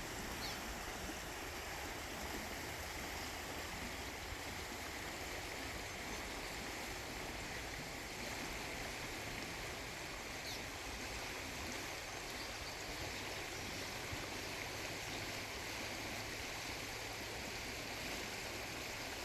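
Flowing river water rushing steadily, with faint short chirps twice.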